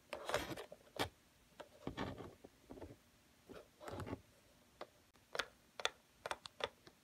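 Plastic Littlest Pet Shop figurines being handled and set down on a wooden surface: irregular light clicks and taps with a few short scuffs.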